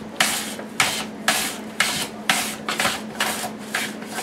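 Potato being slid back and forth across the blades of a Tupperware Mandoline, cutting French fries: a rasping slice about twice a second.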